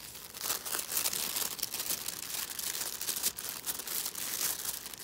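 Packaging being handled and opened by hand: a continuous rapid crinkling and rustling, with a little tearing.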